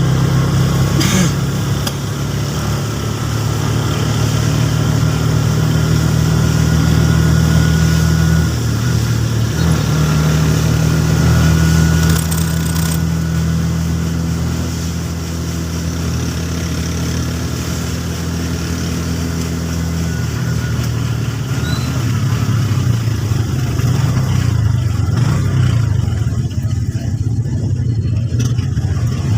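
A motor vehicle engine running steadily at a low hum, its pitch shifting a couple of times.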